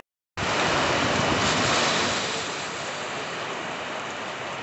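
Heavy rain pouring down in strong wind, a steady rushing noise. It starts abruptly after a brief silence, is loudest for the first couple of seconds, then eases slightly.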